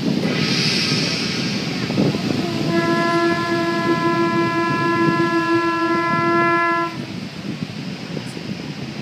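Conch shell horn blown in one long, steady note of about four seconds, starting a couple of seconds in and cutting off abruptly, over a steady rush of background noise. It is the traditional conch call to mark the sunset.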